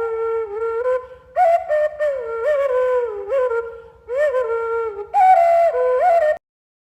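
Background music: a solo melody with sliding, bending notes over a faint low pulse, cutting off suddenly near the end.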